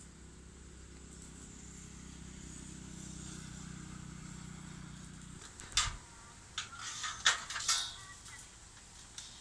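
A passing road vehicle's engine hums low and steady, swelling and then cutting off about five seconds in. It is followed by a few sharp knocks and clatters.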